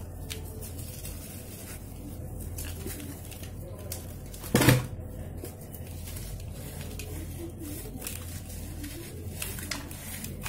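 A soaked sand-cement block crumbling by hand into a bowl of muddy water: gritty crunching and small crackles as lumps break off and drop in. There is one loud thump about halfway through.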